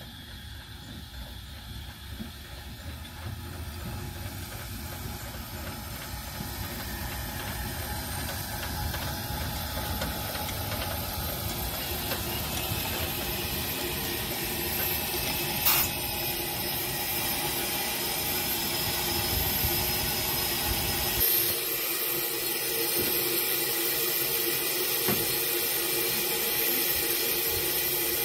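Garratt steam locomotive No. 130 drawing in, growing louder as it nears, with a low rumble of wheels on the rails. About three-quarters of the way through the rumble stops, as the engine comes to a stand, and a steady hiss of steam goes on. A sharp click a little past halfway.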